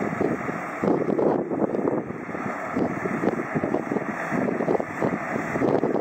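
Crawler bulldozer's diesel engine running as a rough, steady drone, mixed with wind buffeting the microphone.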